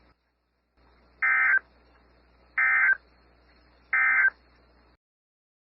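Emergency Alert System end-of-message signal: three short bursts of digital data tones, a bit over a second apart, marking the end of the alert broadcast.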